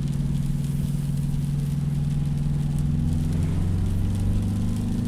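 Subaru Impreza's 2.0 boxer diesel engine droning steadily through a new Remus aftermarket muffler while driving during a DPF regeneration, heard from inside the cabin. The pitch shifts slightly about three seconds in.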